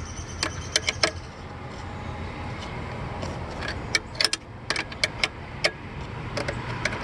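Scattered sharp metallic clicks and clinks of hand tools as a 10 mm socket wrench works on the bolts, coming irregularly and thickest around the middle.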